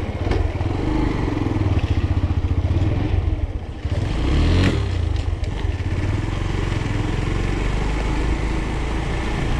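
Motorcycle engine running while riding. The engine eases off briefly about three and a half seconds in, and a short knock follows.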